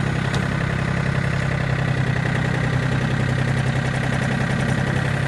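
John Deere 770 compact tractor's three-cylinder diesel engine running steadily.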